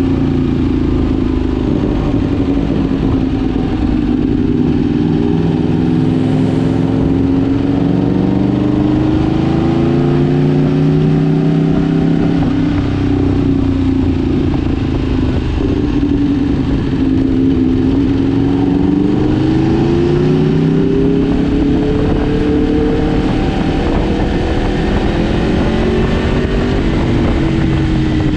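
Superbike engine under way, its note slowly rising and falling with the throttle, over a steady low rumble.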